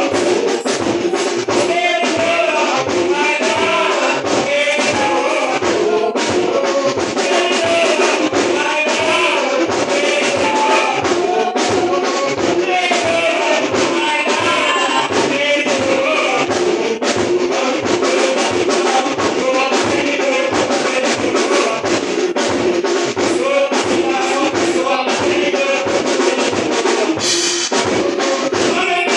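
Congregation singing a spiritual hymn over a steady drum beat.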